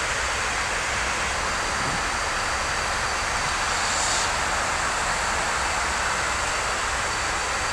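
Steady rush of air and background noise on an Airbus A340-300 flight deck in flight, an even hiss with a thin high tone running through it.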